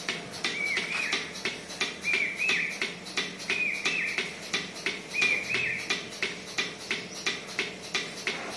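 Portable bucket milking machine, imported from Turkey, milking a cow: the pulsator clicks steadily, about three times a second. A high two-note chirp repeats about every second and a quarter, stopping about two-thirds of the way through.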